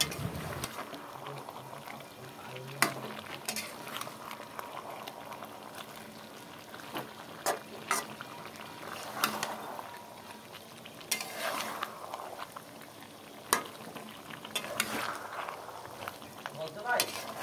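Chicken, potato and onion curry bubbling in a steel pot as it cooks down (kosha) in its spices, with a metal spatula stirring and clinking sharply against the pot every second or two.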